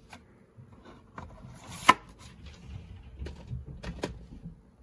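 Handling noise of plastic VHS cassettes on a tabletop: a few light clicks and knocks, the sharpest about two seconds in.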